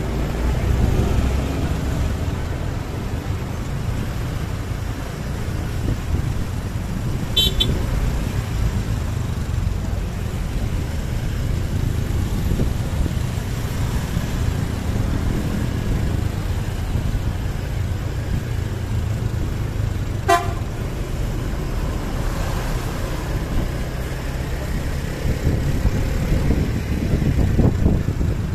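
Road traffic noise: a steady low rumble of engines, tyres and wind, with a vehicle horn tooting faintly. Two short sharp clicks stand out, about seven and twenty seconds in.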